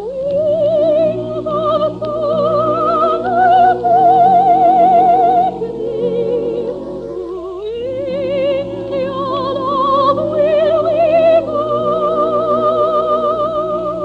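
Operatic soprano singing long held notes with wide vibrato over an orchestral accompaniment, with a brief dip between phrases about seven seconds in.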